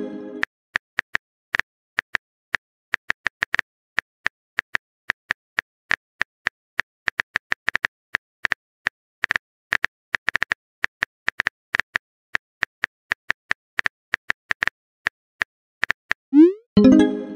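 Texting-app keyboard sound effect: quick, irregular tapping clicks, several a second, as a message is typed. Near the end comes a rising pop with a short tone, the app's message-sent sound.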